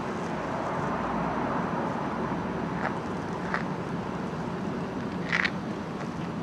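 A car passing on the street: a hiss of tyre and engine noise that swells over the first couple of seconds and then eases. A few short sharp clicks follow, the loudest about five seconds in.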